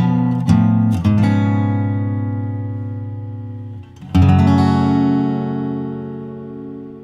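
Background music on acoustic guitar: a few strummed chords, one left ringing and fading, then a final strummed chord about four seconds in that slowly dies away.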